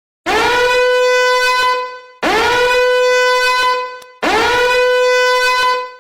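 A horn-like blast sounding three times, about two seconds apart: each one bends up in pitch at the start, holds one steady note, then fades out. It is an alarm sound effect.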